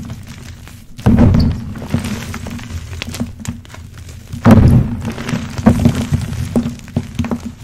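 Hands squeezing and crushing crumbled blocks of NEXO magnesium carbonate gym chalk, a soft powdery crunch. Two loud squeezes come about a second in and about four and a half seconds in, with lighter crumbling and crackles between.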